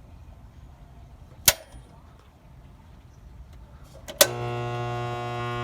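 A sharp click, then about four seconds in another click as the Pentair WhisperFlo pool pump motor is switched on and hums steadily without starting up. The motor is stalled, which the owner suspects is a failed capacitor.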